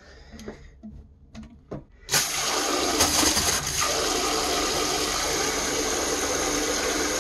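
Handheld bidet sprayer wand shooting a jet of water into the water of a toilet bowl. The jet comes on suddenly about two seconds in, after a few faint clicks, and then runs as a steady rush.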